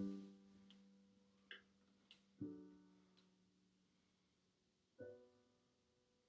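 Soft, slow piano music: a chord about every two and a half seconds, each left to ring and fade.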